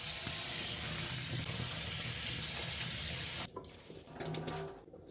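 Kitchen tap running into a sink, a steady rush of water that cuts off abruptly about three and a half seconds in, followed by a few faint knocks.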